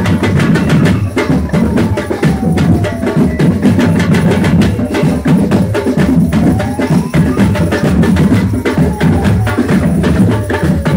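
A street percussion band of bass drums and snare drums plays a busy, steady rhythm. Behind the drums a fainter tone slowly falls, rises about two-thirds of the way through, and falls again.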